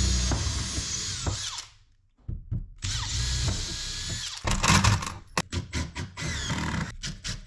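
Cordless drill running into a wooden strip on the workbench: two runs of a second or two each with a high motor whine and a short pause between, then a string of short trigger blips in the last few seconds.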